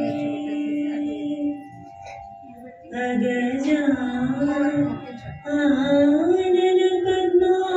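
A woman singing a slow song with long held notes that waver in pitch, over steady musical accompaniment. The singing drops away for about a second near two seconds in, then resumes.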